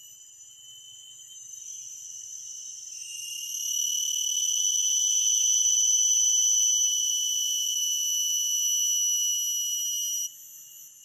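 A forest insect shrilling in one continuous high-pitched tone. It swells much louder about three and a half seconds in, then drops off suddenly near the end.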